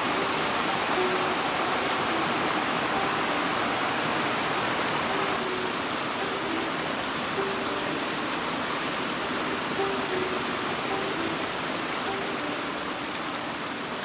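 Mountain stream rushing steadily over rocks, easing off a little toward the end, with faint notes of background music over it.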